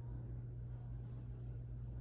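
Steady low hum with faint background noise and no distinct events.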